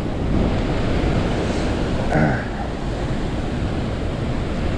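Strong wind buffeting the microphone, with lake waves washing against a rocky rip rap shore.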